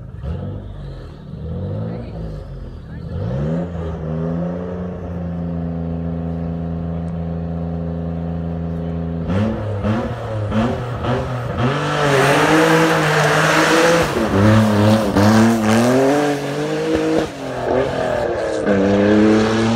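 Toyota MR2 rally car's engine blipping its revs, then held at steady high revs for about five seconds before launching on gravel. The revs then climb and drop again and again as it accelerates through the gears, with a loud hiss of tyre and gravel noise.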